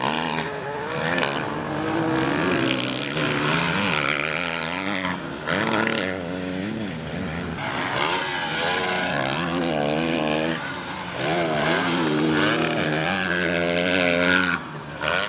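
Motocross dirt bike engines revving hard, their pitch rising and falling again and again as the throttle is opened and shut over the jumps.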